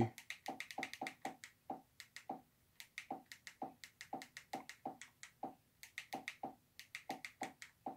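Remote control buttons clicking in quick succession, about three or four presses a second with a short pause a little after two seconds: repeated presses scrolling down through a channel menu.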